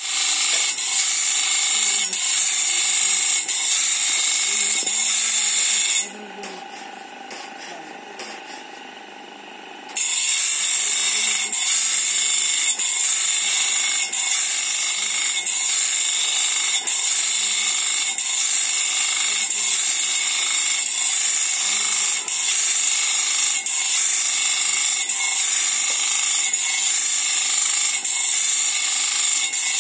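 Electric bench grinder's abrasive wheel grinding the steel teeth of a sawmill band-saw blade: a loud, steady, high hiss of metal on stone. A few seconds in, the grinding breaks off for about four seconds, leaving a quieter hum, then resumes.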